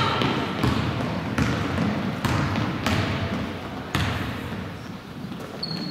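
A basketball being dribbled on a hardwood gym floor, a bounce about every three-quarters of a second, over the low background noise of play in a large gym. A short high squeak comes near the end.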